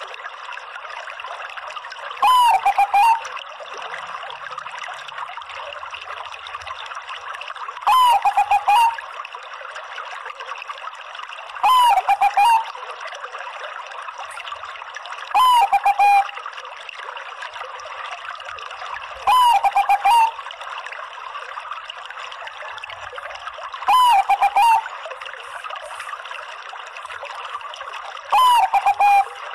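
Bangkok-line zebra dove (perkutut) song: a short, loud phrase of cooing notes repeated about seven times, roughly every four seconds. A steady trickle of running water plays underneath.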